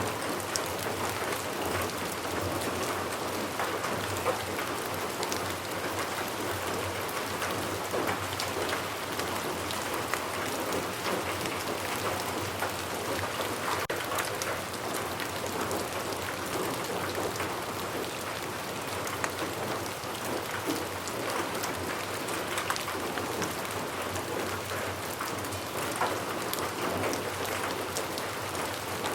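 Steady rain falling, a continuous hiss speckled with many small, distinct drop hits.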